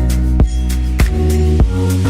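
Background music with a steady beat: a bass line, sustained chords and regular drum hits.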